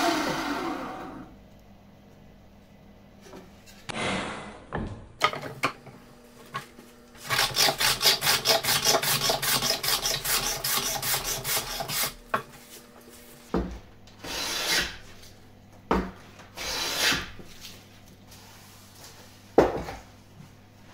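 A bandsaw cut through a pine board ends about a second in. Then hand-tool work on the pine board at the bench: a run of quick, even strokes at about four a second for several seconds, followed by a few single longer strokes and sharp knocks.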